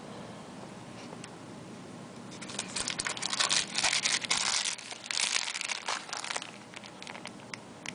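Plastic packaging crinkling as it is handled for about four seconds, starting a little over two seconds in: unboxing accessories such as a small bag of spare parts.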